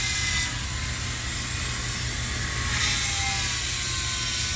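A high-speed hand-held power tool etching a design into a block of ice. Its whine drifts slowly in pitch and its hiss brightens and dulls as the bit bites into the ice, over a steady low hum.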